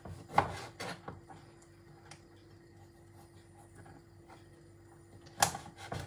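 Knife cutting through a lime and knocking on a plastic cutting board: a couple of knocks in the first second, a fainter one about two seconds in, and a sharper knock near the end.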